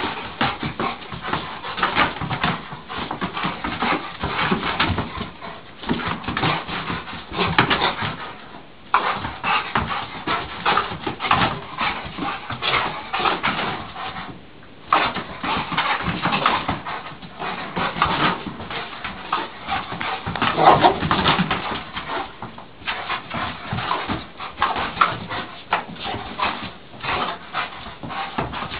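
A dog playing with an inflated rubber balloon: a busy, irregular run of taps, bumps and scrabbling as it noses and snaps at the balloon and moves about on the carpet, with short dog whimpers. The activity drops off briefly twice.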